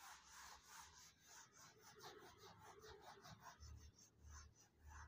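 Whiteboard duster rubbing across a whiteboard in quick back-and-forth strokes, several a second, faint.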